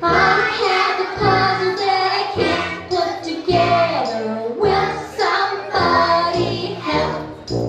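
A group of children singing together with instrumental accompaniment.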